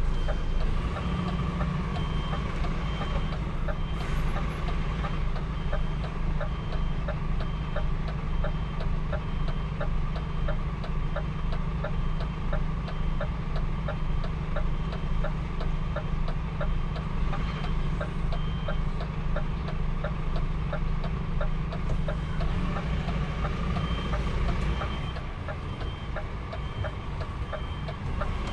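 A truck's reversing alarm sounds a steady series of short high beeps as the truck backs up, over the steady hum of its running engine. The engine quietens near the end.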